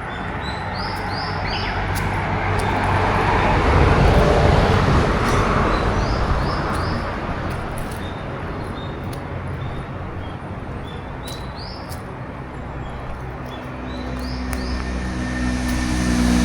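A road vehicle passes, its noise swelling to a peak about four seconds in and then fading; near the end a second vehicle with a low engine hum approaches. Small birds chirp throughout in short runs of about three notes.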